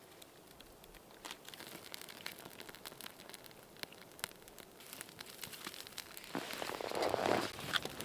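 Crinkling and rustling with scattered light clicks, swelling to a louder rustle for about a second near the end.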